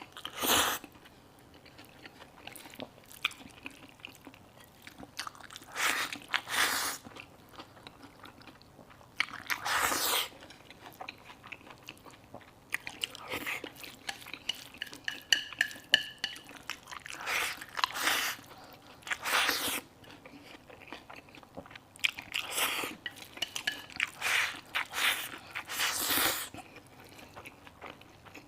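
Close-miked eating: irregular bursts of chewing and biting into a bowl of chili-dressed eggplant and century egg, each burst about half a second to a second long with short pauses between.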